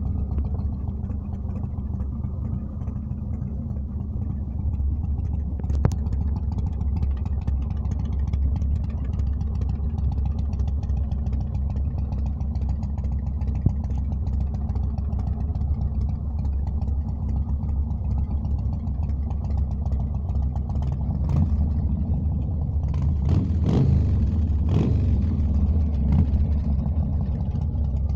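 Yamaha Road Star 1700's air-cooled V-twin engine idling steadily, then revved in a few short throttle blips about three-quarters of the way through.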